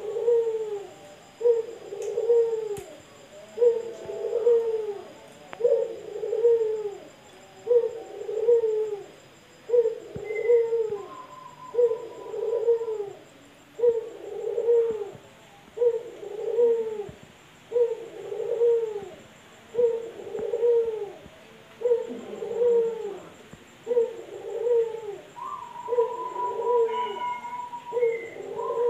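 Male puter (domestic Barbary dove) cooing over and over in an even rhythm, about one coo every second and a half. A higher, drawn-out call comes in twice, about midway and near the end.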